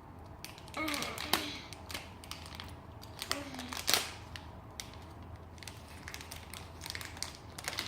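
Irregular crinkling and crackling of a blind-bag wrapper being handled and torn open, with brief vocal sounds about a second in and again midway.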